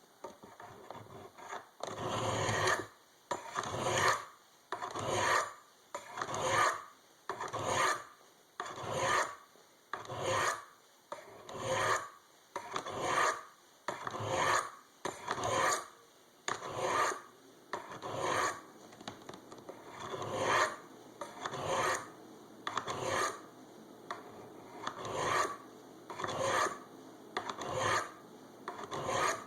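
Knife blade drawn down the corners of a Spyderco Sharpmaker's medium-grit ceramic rods in repeated rasping strokes, about one a second, starting about two seconds in. The blade is being ground to a 15-degree micro bevel to raise a burr.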